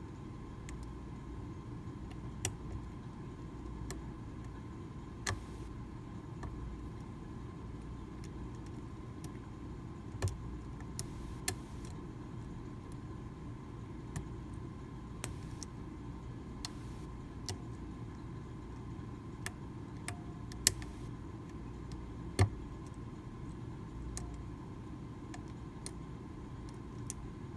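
Sparse, irregular small metallic clicks of a hook pick working the chisel-tipped pins of a Medeco Original mortise lock cylinder under tension, over a steady low hum. The sharpest clicks come about twenty and twenty-two seconds in.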